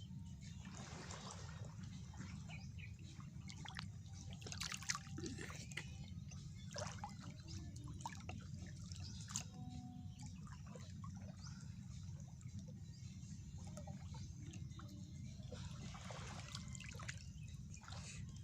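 Gentle water trickling and dripping, with small scattered splashes and clicks over a steady low rumble.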